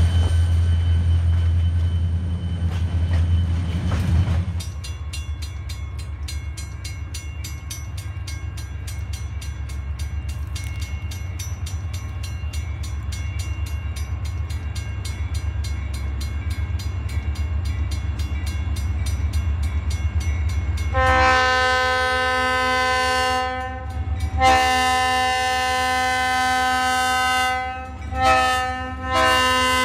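Freight cars rumbling past for the first few seconds. Then a grade-crossing bell rings with a fast, steady clang. From about two-thirds of the way in, the approaching Boston & Maine 326 locomotive blows its multi-chime air horn in the long, long, short, long pattern of a grade-crossing signal.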